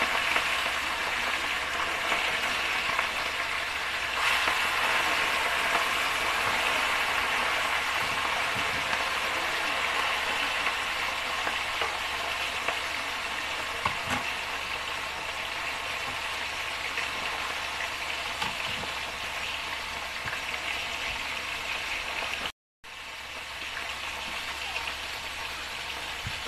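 Tilapia pieces shallow-frying in hot cooking oil in an aluminium wok, with a steady sizzle and a few faint clicks. Near the end it breaks off briefly, then goes on a little quieter.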